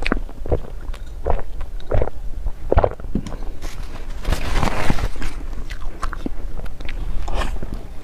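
Close-miked eating: bites and chewing of dessert with many small crunchy clicks, and one louder, longer crunch about four and a half seconds in.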